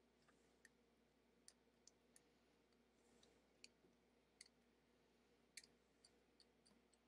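Faint, irregular small clicks, about fifteen of them, of a hobby tool picking and tapping at a grey plastic miniature sprue, over a faint steady hum.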